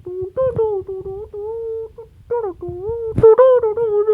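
A voice humming a wavering melody in short phrases, without words. A sharp knock sounds about three seconds in.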